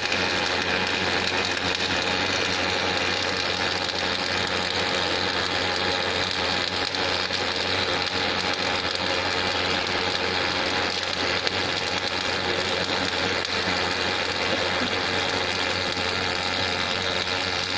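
Wire-feed (MIG/MAG) welding arc on an automatic hydraulic-cylinder welding machine, running continuously as the workpiece turns under the fixed torch. It gives a steady sizzling noise over a low machine hum.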